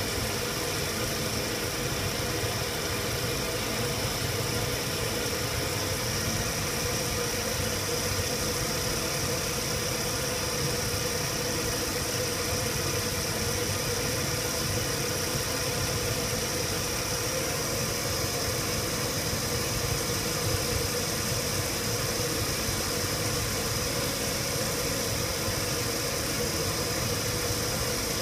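A machine running steadily: a constant hum with a high whine on top, unchanging throughout.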